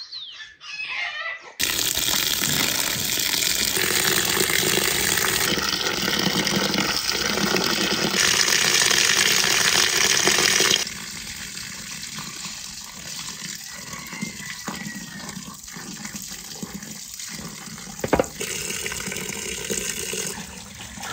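Water running steadily from a tap, starting suddenly after a brief chicken cluck, with a few abrupt jumps in level and dropping to a quieter, steady flow about halfway through.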